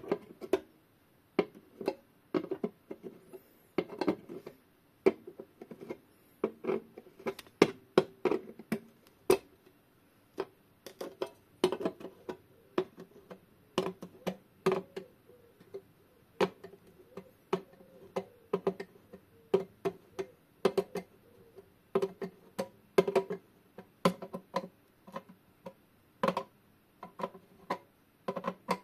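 Screwdriver and pliers tightening the movement's mounting screws through the back of a metal wall-clock case: irregular sharp metal clicks and taps, each ringing briefly in the case.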